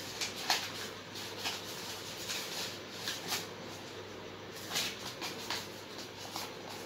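A crumpled sheet of paper crinkling and rustling as it is unfolded by hand, in irregular short crackles.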